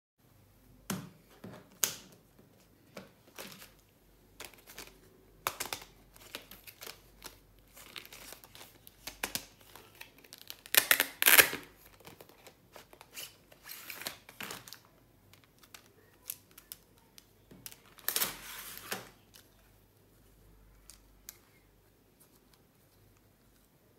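Clear plastic packaging of a set of pens crinkling and tearing as it is opened by hand, mixed with light plastic clicks and taps as the pens are handled. The loudest crinkling comes about halfway through and again about three quarters of the way through.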